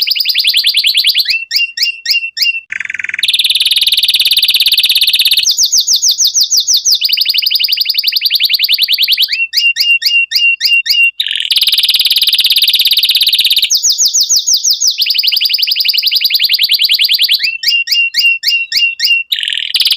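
Domestic canary singing, a male in breeding condition, in long rolls. Stretches of very fast, high trills alternate with phrases of repeated sharp chirped notes, with hardly a break between them.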